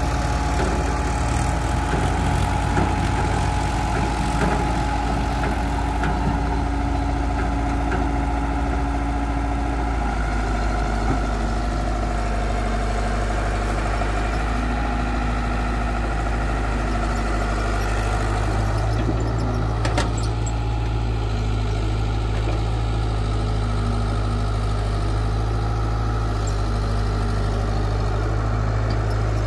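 Caterpillar 120B tracked excavator's diesel engine running steadily while the machine digs, its note shifting a little now and then. There is a single knock about two-thirds of the way through.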